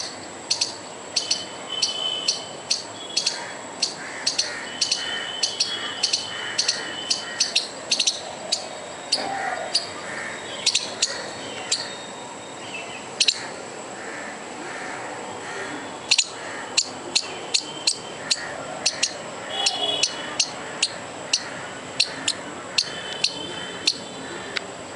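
Squirrel alarm calling: a long string of sharp, high chirps, roughly two a second, with a short lull a little past halfway through.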